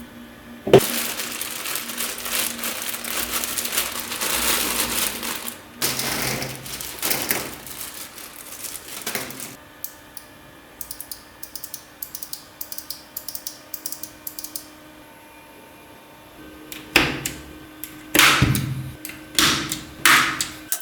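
Typing on a Gamakay LK67 mechanical keyboard with Kailh Box switches. A fast run of keystrokes is followed by slower single key presses, then a few heavier, deeper key strikes near the end.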